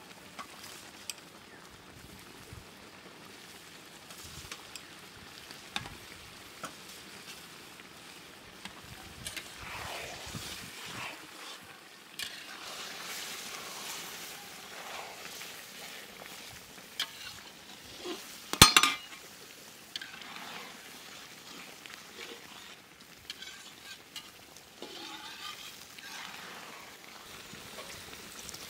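Metal spatula stirring and scraping a curry simmering in a large metal wok, with sizzling, scattered clinks and one loud metal-on-metal clank about two-thirds through. Near the end water is poured into the pan.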